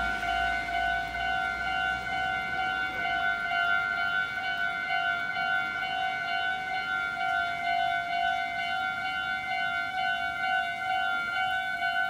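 Japanese railroad crossing's electronic warning bell sounding its rapid, evenly repeating kan-kan tone without a break, the signal that a train is approaching and the gates are down.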